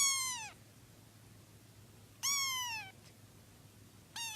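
A cat meowing three times, each meow falling in pitch: two drawn-out meows, one at the start and one about two seconds in, and a short one near the end.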